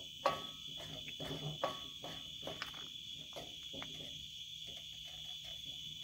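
Crickets chirping steadily in a continuous high trill, with a wooden spoon scraping and knocking now and then against a cast-iron skillet as charring egg yolks are stirred.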